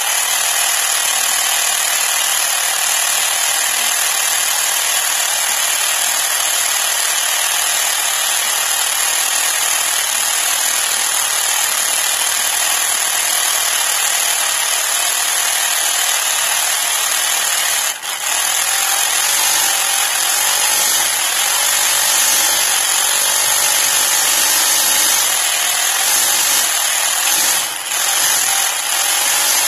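The motor-driven belt and pulleys of a 3D-printed scale blown Hemi model spin up and run at a steady, high-pitched whir, buzzing like a small power drill. The sound dips briefly about eighteen seconds in and again near the end.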